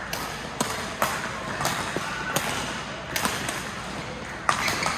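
Badminton rackets striking a shuttlecock: sharp cracks at irregular intervals, roughly one or two a second, echoing in a sports hall.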